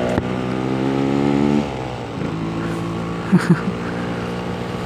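Yamaha RX King's two-stroke single-cylinder engine running on the road, its note climbing slightly under throttle, then dropping as the throttle closes about a second and a half in and running on steady at a lower pitch. Two brief chirps sound about three and a half seconds in.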